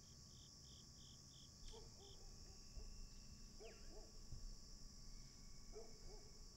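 Faint evening insect chorus of crickets, a steady high trill, with a quick run of about seven short chirps in the first two seconds and a few faint, wavering low calls from some distance later on.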